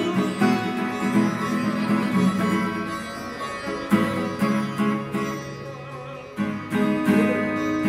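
Acoustic guitar strummed together with a sitar in an improvised duet, with ringing chords and plucked notes. The playing eases off a little before a fresh strong stroke about six and a half seconds in.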